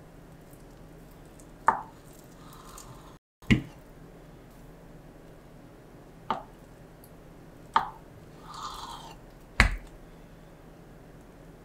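Kitchen knife slicing through a block of Spam and knocking on a wooden cutting board: five sharp knocks of the blade on the board, a second or two apart. Between two pairs of knocks comes a softer scrape as the blade draws through the meat.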